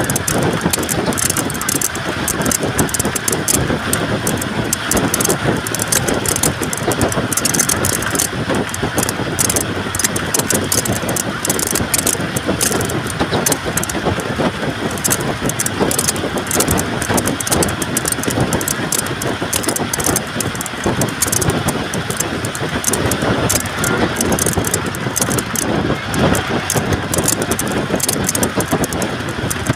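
Steady running noise of a moving vehicle heard from inside: a constant rumble with fine, continuous rattling.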